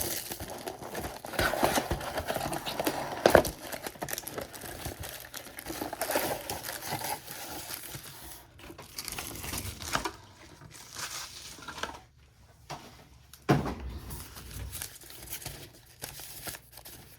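Plastic and foil wrapping crinkling and tearing as a box of baseball card packs is opened and handled. There is a sharp knock a little over three seconds in, a quieter stretch near twelve seconds, and a low thump soon after.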